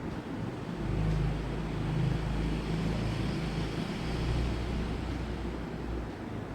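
Low engine rumble that swells about a second in and eases off near the end, like a motor vehicle passing by.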